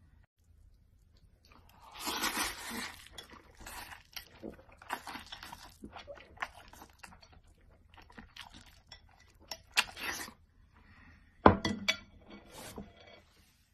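Eating sounds up close: biting and chewing food in irregular bursts, with chopsticks clinking against a plate. A sharp knock near the end is the loudest moment.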